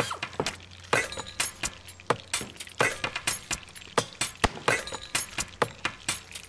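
Irregular clicks, taps and clatter of hard plastic as the body shell and chassis parts of a small MN99S RC crawler are handled and fitted together, several sharp clicks a second.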